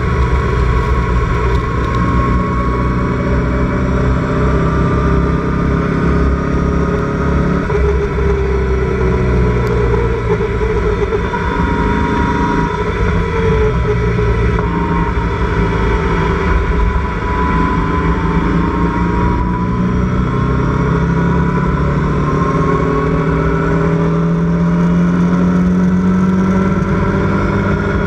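Onboard sound of a Locost club race car's engine running hard, its pitch stepping down and up several times as the driver works through the gears, then climbing steadily in one gear near the end, over constant wind and road noise in the open cockpit.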